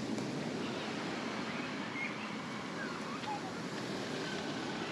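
Steady rushing outdoor ambience with a few faint, short bird chirps.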